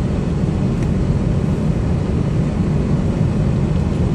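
Scania R440 truck's 13-litre straight-six diesel running steadily at low speed, heard from inside the cab as the truck manoeuvres: an even, low-pitched engine noise.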